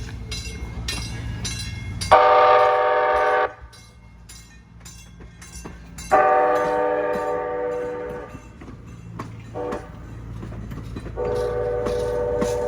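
Nippon Sharyo P865 light-rail car sounding its horn in three blasts: a short one about two seconds in, a longer fading one around six seconds, and a third starting near the end. Under the horn, its warning bell strikes steadily about twice a second.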